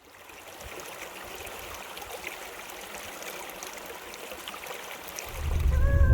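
River water flowing, an even rushing with small splashes. A loud low rumble sets in near the end.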